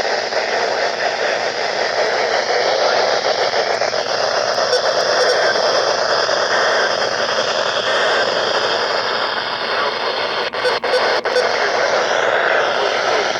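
Weather radio receiver giving out steady loud static hiss, the sound of a weak or empty broadcast signal. Three short dropouts in the hiss come about ten and a half seconds in.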